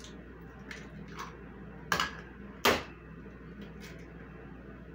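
Eggs being cracked on a glass mixing bowl: a few sharp taps, the two loudest a little under a second apart near the middle, with fainter clicks of the shell being pulled apart.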